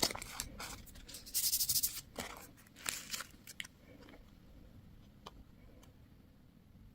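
Crinkling and tearing of candy and toy packaging in a quick run of sharp rustles, loudest a second and a half in. It stops a little over halfway through, leaving two faint clicks.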